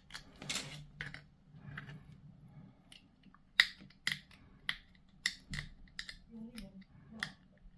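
Sharp clicks and snaps of hard plastic miniature parts being handled and fitted together, a string of about a dozen separate clicks, the loudest about three and a half seconds in.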